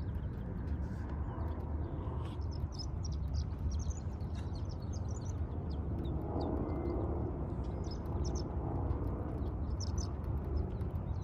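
Outdoor ambience: small birds chirping in many short, high calls over a steady low rumble, with a broader swell of noise about six seconds in.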